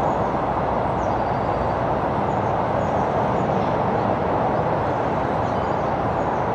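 Steady road and running noise of a moving car, heard from inside the cabin.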